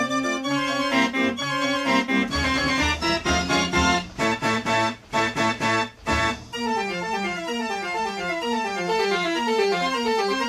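Background organ music playing fast runs of notes, with two brief dips about five and six seconds in.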